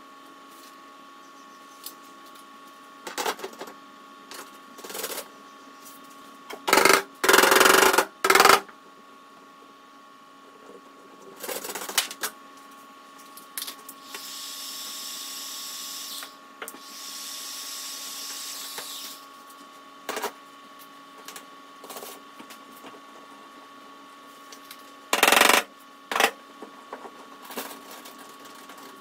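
Clicks and knocks of dent-repair tools handled on an aluminium car bonnet during glue-pull dent repair, with the loudest cluster of knocks about seven to eight seconds in. Two steady hisses of about two seconds each come around the middle, over a faint steady hum.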